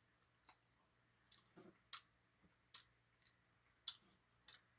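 Near silence broken by about five faint, sharp clicks spaced irregularly, roughly a second apart.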